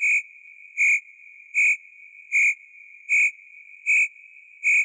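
High-pitched electronic beep sound effect, pulsing evenly a little faster than once a second over a faint steady tone of the same pitch.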